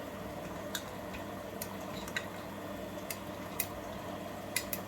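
Beko washing machine filling with water, flushing the washing powder in from the detergent drawer: a steady water rush over a low hum, with scattered light clicks.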